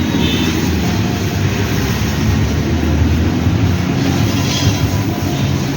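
A motor running steadily with a continuous low rumble.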